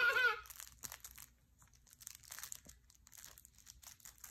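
Scattered soft crinkling and rustling as squirrel monkeys paw and tug at crinkly baby toys.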